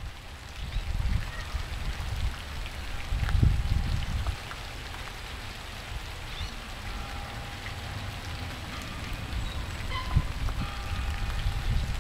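Rain falling, with a low rumble that swells and fades a few times, strongest a few seconds in and again near the end.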